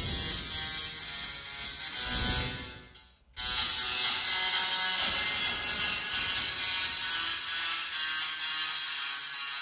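Small tabletop Tesla coil's spark discharge buzzing and crackling as its arcs strike a plastic snack packet held over the terminal. It cuts out for a moment about three seconds in, then starts again.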